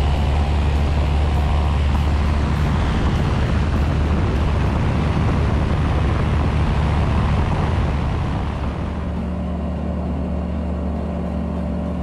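Light aircraft's piston engine and propeller at full takeoff power, a steady deep drone with rushing air through the takeoff run and climb-out. About eight seconds in it turns somewhat quieter and duller.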